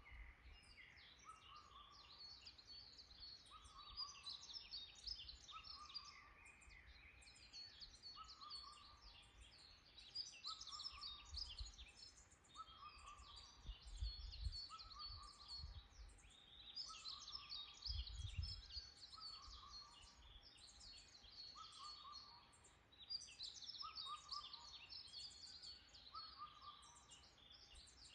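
Faint woodland bird chorus: several birds chirping and twittering in quick high notes, while one bird repeats a short, lower falling call at a steady pace about every second and a half. A few low rumbles come in around the middle.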